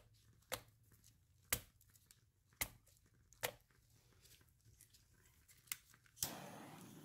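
Wooden-wick candle crackling: about seven sharp, separate pops, roughly a second apart. Near the end a steady hiss starts abruptly.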